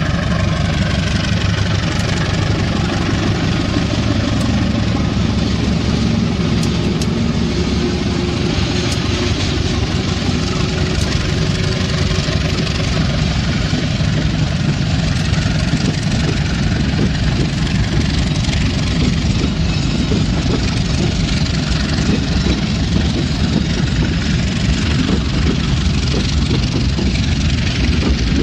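Diesel-electric locomotive engine running steadily with a deep, even throb.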